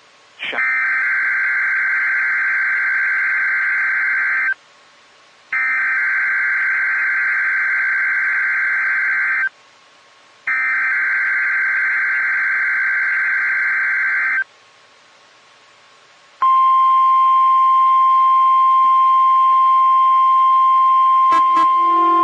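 NOAA Weather Radio Required Weekly Test signalling: three harsh, buzzing SAME digital header bursts, each about four seconds long and a second apart, then the steady 1050 Hz weather radio warning alarm tone. Near the end there are a couple of clicks, and a lower tone sounds along with the alarm.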